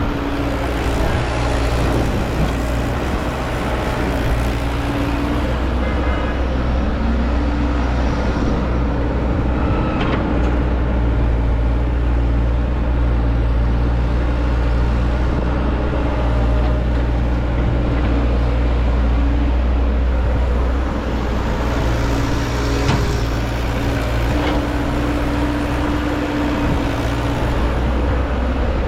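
Heavy machine's diesel engine running steadily, with a deep even hum and small shifts in pitch.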